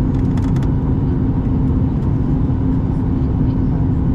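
Steady cabin noise of a Boeing 737 MAX 8200 on approach: a low rumble of airflow and its CFM LEAP-1B engines with a steady hum. A short cluster of small clicks comes about half a second in.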